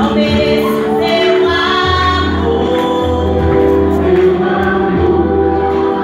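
A woman singing through a handheld microphone and PA, with other voices singing along.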